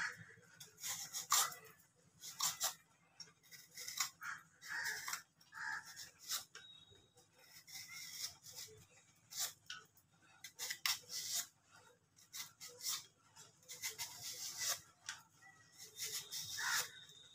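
A knife shaving the skin off a raw green mango in repeated short, irregular scraping strokes.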